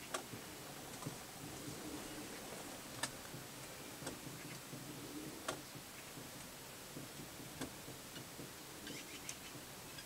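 Faint, irregular clicks and ticks, about a dozen at uneven intervals with a small cluster near the end, over a low steady hiss.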